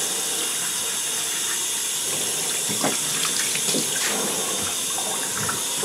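Handheld shower head spraying a steady stream of water onto a wet puppy's coat and the bathtub floor.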